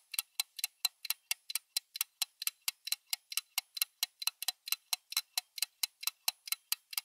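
Clock-like ticking sound effect: a steady run of sharp, evenly spaced ticks, about four or five a second.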